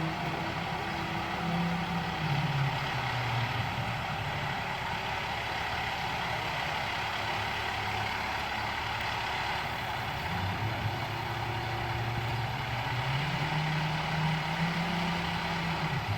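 Heavy truck engine running steadily, its speed dropping a few seconds in and rising again in the last few seconds.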